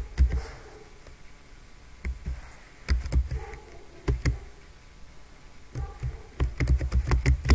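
Typing on a computer keyboard: irregular keystroke clicks with dull thuds, coming in short runs, busiest near the end.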